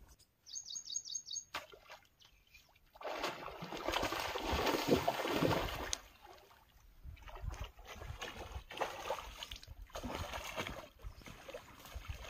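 A big hooked fish, a rohu, thrashing and splashing at the water's surface on a fishing line, loudest for about three seconds from three seconds in, then smaller irregular splashes and sloshing as it is played close in. A quick run of about five high chirps sounds about half a second in.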